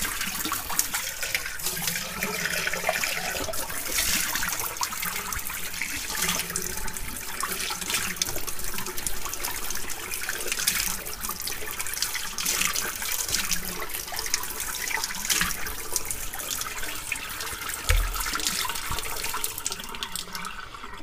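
Tap water running into a ceramic sink, the stream splashing unevenly as a gutted chicken and then hands are rinsed under it. A single dull thump near the end.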